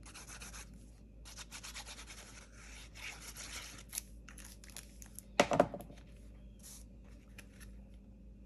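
Paper handling: the tip of a liquid glue bottle scratching and rubbing across cardstock. Then the glued panel is lifted and pressed flat onto the card base, with light taps and rustles and one short louder rustle just past the middle.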